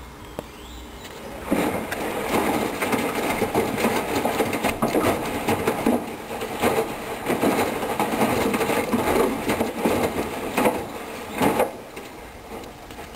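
Hoover Dynamic Wash washing machine drum turning, with the load and water tumbling and knocking irregularly. It starts about a second and a half in and stops about two seconds before the end, as the drum pauses between turns.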